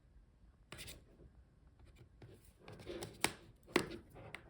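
Faint scraping and clicking of a pry tool being worked into the seam between a laptop's bottom case and palmrest. There is one sharp click under a second in and three more in the second half.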